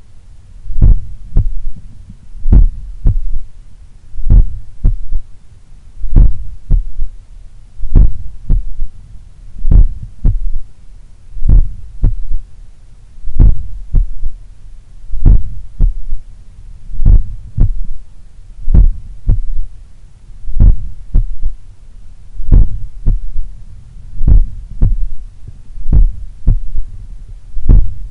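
Slow, strong human heartbeat heard through a stethoscope at the apex of the heart. Each beat is a cluster of short low thuds at an even rhythm, over a constant low rumble. A third heart sound (S3) follows the second sound, which the uploader puts down to blood recoil or a slightly larger, supple left ventricle of an athlete's heart.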